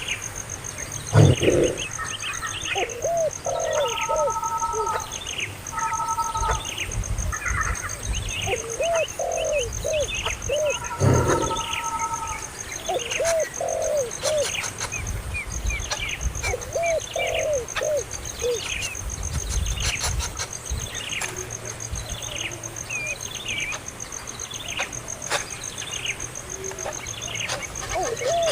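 Birds calling: many short, high, downward-sweeping chirps repeat throughout, mixed with lower arched calls in groups of two to four. A steady high-pitched tone runs underneath.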